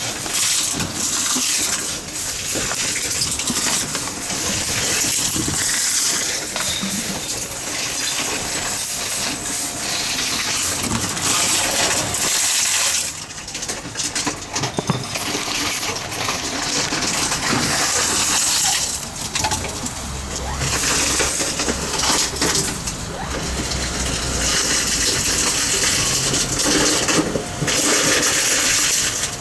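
Tomra T-63 reverse vending machine running as it takes in containers: a continuous hissing mechanical noise with frequent clattering, briefly dipping about 13 seconds in, and a low hum from about 20 to 25 seconds in.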